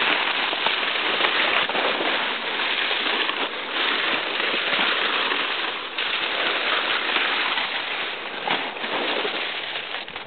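Stiff saw palmetto fronds rustling and scraping continuously as someone pushes through dense scrub, easing off near the end.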